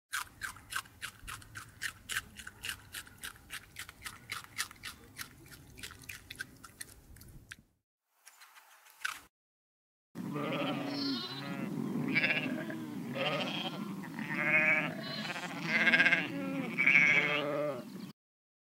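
Rapid crunching clicks, about four a second, for the first seven or so seconds. After a short pause comes a series of about eight bleats, roughly one a second, the last few the loudest.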